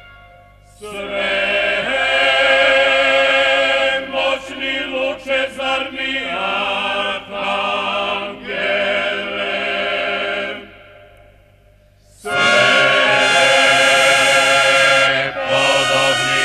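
Choral singing in a slow, chant-like style, voices wavering with vibrato over a steady low sustained tone. The singing fades in shortly after the start, breaks off for over a second a little past the middle, then comes back louder.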